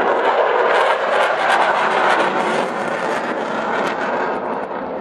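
Jet engine noise from a Eurofighter Typhoon fighter flying past during a display, a dense steady rush that eases slightly near the end as it pulls away.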